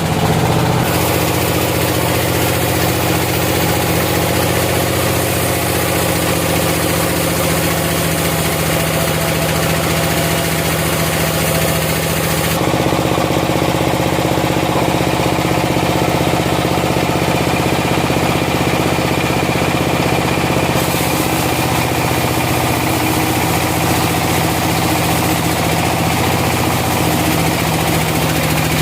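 A sawmill's engine running steadily. Its tone changes abruptly about a second in, near the middle and about two-thirds through.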